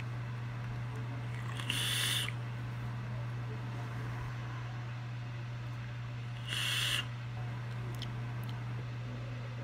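Two short breathy rushes of air, each about half a second and some four and a half seconds apart: a person blowing out vapour from an e-cigarette. A steady low hum runs underneath.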